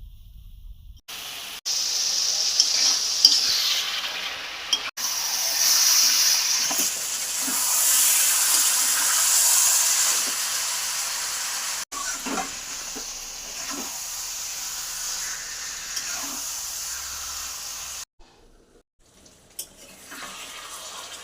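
Chicken curry frying in a pan: a steady sizzle of oil with occasional knocks and scrapes of a spoon stirring, broken by short cuts and dropping away about three seconds before the end.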